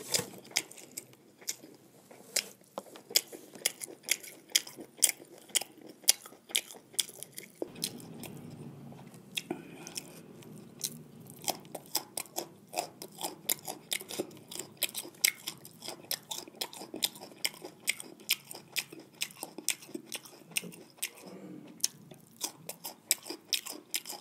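Close-miked chewing and mouth smacks of someone eating jeera rice and fried buffalo tongue, with many sharp, irregular clicks.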